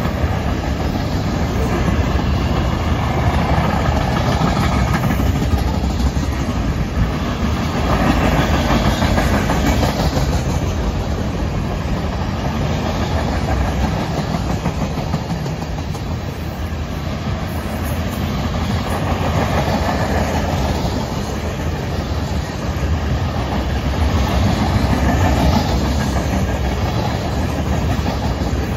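Freight cars of a long freight train rolling past: steady rumble and clatter of steel wheels on the rails as loaded centerbeam lumber flatcars, tank cars and covered hoppers go by. The sound swells and eases gently every few seconds.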